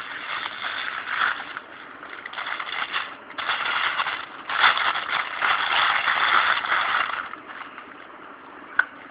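Crinkling and rustling packaging being handled and opened around a kit lens, in uneven bursts with many small crackles. It is loudest from about three and a half to seven seconds in, then quieter, with one sharp click near the end.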